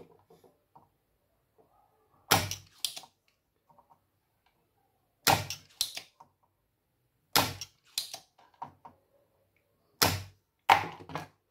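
Spring-loaded desoldering pump (solder sucker) firing with a sharp snap as it sucks molten solder from a motherboard joint. This happens four times, each snap followed about half a second later by a second click.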